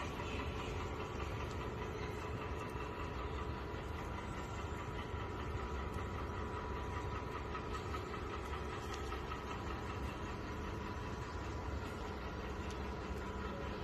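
A steady low mechanical drone with a faint constant hum, like an engine running, unchanging throughout.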